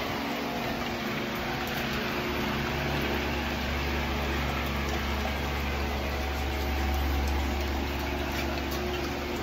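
Electric fan running with a steady whir and a low hum that grows a little stronger a couple of seconds in.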